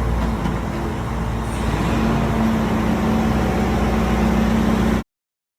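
Steady motor-vehicle engine running, a deep rumble with a faint steady hum; it cuts off abruptly about five seconds in.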